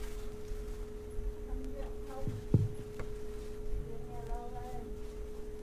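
A steady, even hum at one pitch runs under faint, indistinct voices in the room. A single short knock comes about two and a half seconds in.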